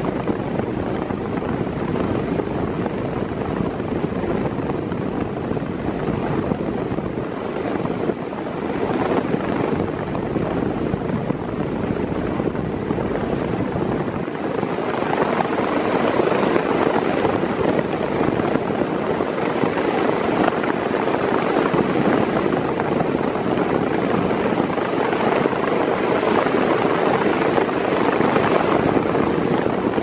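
Six-blade Mondial 40 cm, 140 W electric fan running at maximum speed: a steady rush of blown air close to the grille, getting a little louder about halfway through.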